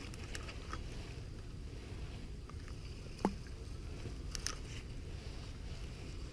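Steady low rumble of wind on the microphone, with a few faint clicks from handling a spinning reel and one brief falling squeak about three seconds in.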